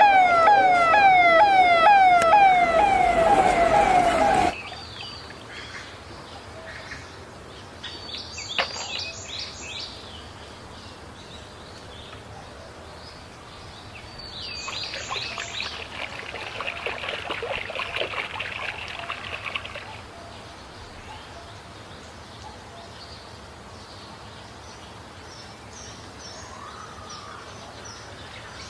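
Suzuki van ambulance's siren wailing in rapid, repeated falling sweeps, cut off suddenly about four seconds in. Then much quieter splashing and handling noises as a toy is washed in a tub of water.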